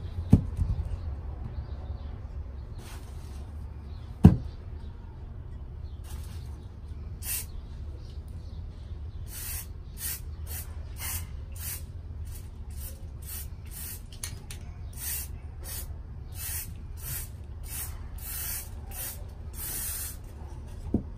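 Aerosol spray can hissing in short bursts as a coating is sprayed onto a terra cotta saucer: a few scattered bursts at first, then about two a second through the second half. A single sharp knock about four seconds in.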